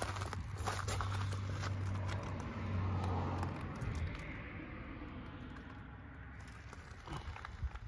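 A road vehicle's engine running with a steady low hum that swells about three seconds in, stops about four seconds in, and then fades away. A few sharp clicks come near the end.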